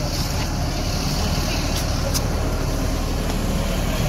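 Bus engine idling close by, a steady low rumble.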